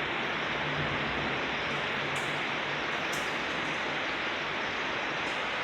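Heavy rain pouring down steadily in a thunderstorm, an even hiss of rainfall.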